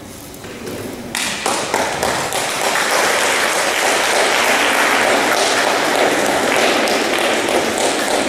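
Applause breaking out about a second in and swelling into steady clapping from many hands.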